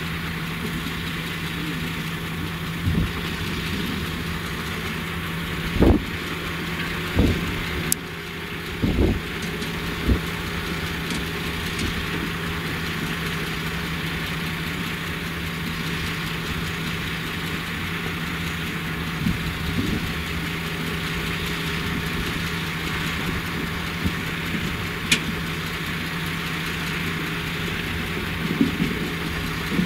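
Heavy diesel machinery running steadily at a sugar-beet loading site, a constant engine hum with a few irregular low thumps.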